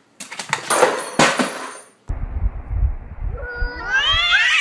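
Domestic cat's drawn-out yowl that climbs steadily in pitch, the warning caterwaul of a cat squaring up to another cat, starting about three seconds in over a low rumble. Before it comes a loud second or two of scuffling, clattering noise.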